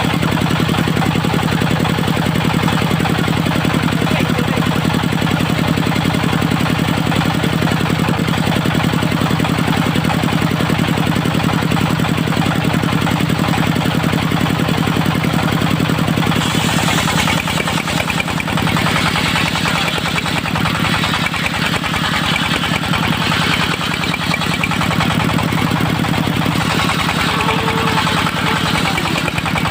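Engine of a portable circular sawmill running steadily. About halfway through, the sound turns rougher and brighter as the engine comes under load, typical of the disc blade cutting into a teak log.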